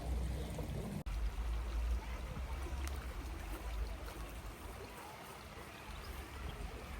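A stream running steadily, with wind rumbling on the microphone.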